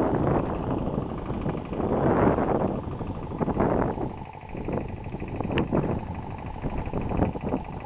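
Wind buffeting the microphone in gusts, swelling and fading, with a brief lull about four seconds in.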